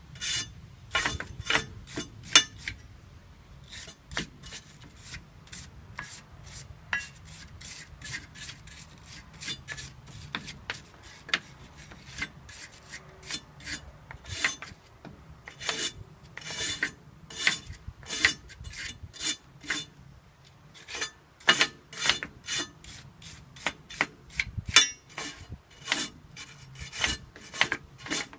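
Repeated hand scraping or filing strokes, roughly three a second, coming in runs with short pauses, from hand work on a brake part.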